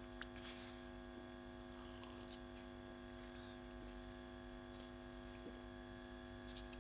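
Steady electrical mains hum in the microphone's sound system, a constant buzzy drone, with a few faint clicks now and then.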